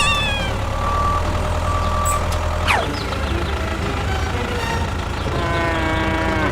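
A small machine's motor runs with a steady low hum. Short beeps sound over it in the first two seconds, with a quick falling whistle about three seconds in and a slowly falling tone near the end.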